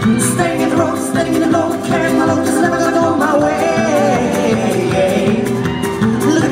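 A man singing live into a handheld microphone over backing music, amplified through stage speakers.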